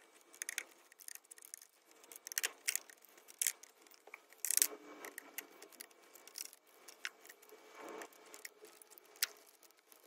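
Screwdriver backing screws out of the plastic control-board housing on a washing machine's control panel: a scatter of light clicks and scrapes, with a louder clack about four and a half seconds in.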